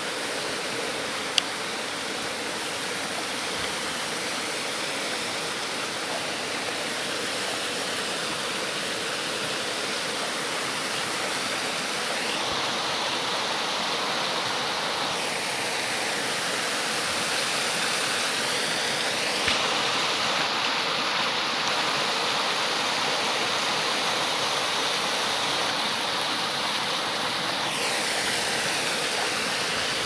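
Small waterfall spilling in thin streams down a rock face: a steady rush and splash of falling water.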